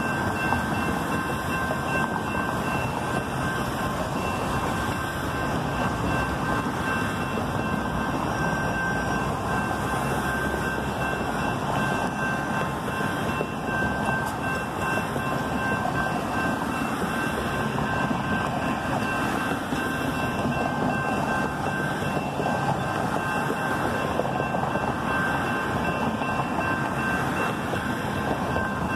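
Level-crossing warning bells ringing steadily with the gates down, over the continuous rushing rumble of a Metro Expo Line light-rail train passing.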